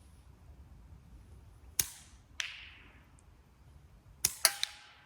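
Catapult (slingshot) shots: two sharp snaps about half a second apart near two seconds in, then another close pair near the end, the last followed by a brief ringing.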